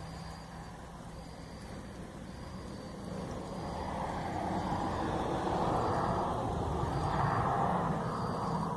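A vehicle passing on the road, its noise swelling over several seconds, peaking and fading near the end. Behind it, an insect chirps about once a second.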